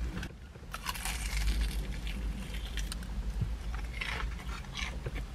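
Crunchy bites and chewing of breaded fried chicken close to the microphone: a run of short crisp crunches starting about a second in.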